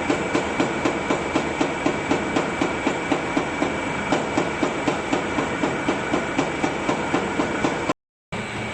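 Sawdust briquette-making machinery running, with a regular knock about four times a second over a steady mechanical noise. Near the end the sound cuts out briefly, then steady machine noise continues without the knocking.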